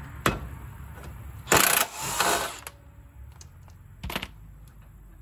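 Cordless impact wrench with a 22 mm socket running for about a second on the rear shock absorber's mounting nut, spinning it loose. A sharp click follows about a second before the end.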